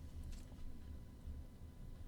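Quiet room tone: a faint steady low hum, with one soft click about a third of a second in.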